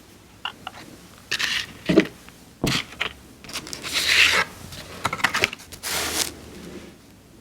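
Paper tearing and crinkling close to the microphone, in about six short, crisp bursts with a few small clicks between them.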